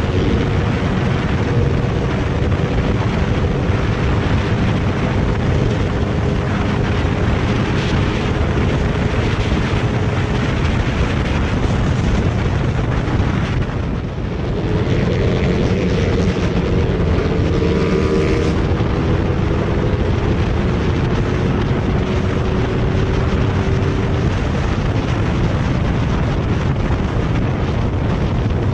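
Motorcycles running flat out at highway speed, heard from on board as a loud, steady rush of wind on the microphone with engine drone underneath. The sound dips briefly about halfway through, then carries on the same.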